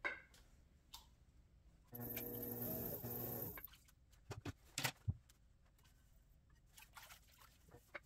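Clean-up at a pottery wheel: knocks and clatters of hands and tools against the wheel head and plastic splash pan, the loudest about halfway through, then faint scattered clicks. Before that, about two seconds in, comes a short stretch of a steady, hum-like sound that cuts off suddenly.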